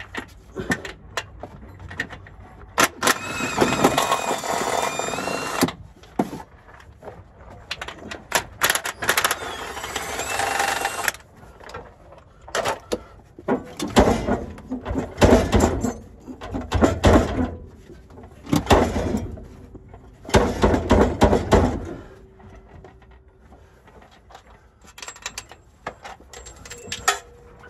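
Cordless power wrench running in repeated bursts of a few seconds, its motor whining, while bolts are taken off a 4L60E transmission under a Chevy Trailblazer.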